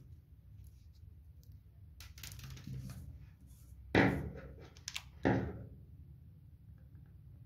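Hard objects handled on a wooden tabletop: a soft rustle, then two sharp knocks about a second apart, with a faint click between them, as a plastic hot glue gun is brought down onto the table and the craft frame.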